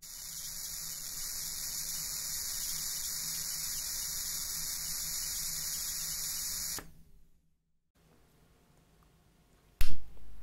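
High-voltage corona discharge from a home-built ion engine's split copper-wire electrode, fed about 20 kilovolts by an arc lighter through a four-stage voltage multiplier: a steady, high-pitched hiss with a faint low hum that cuts off after about seven seconds. Near the end there is a sudden loud knock.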